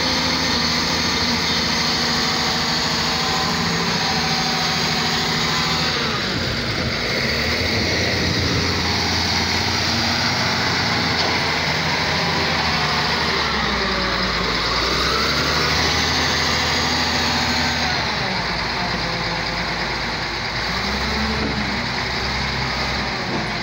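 Wheel loader's diesel engine running hard as the machine manoeuvres, its pitch rising and falling several times, with a dump truck's engine running alongside.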